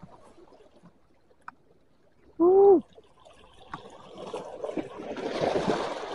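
Shallow sea water lapping and washing among shoreline rocks, swelling into a louder rush of water over the rocks in the last two seconds. About two and a half seconds in comes one short, loud pitched call lasting under half a second.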